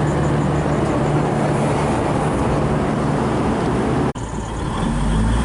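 V/Line VLocity diesel railcar standing at the platform with its engines running, a steady low drone. About four seconds in the sound cuts out for an instant and comes back with a deeper rumble.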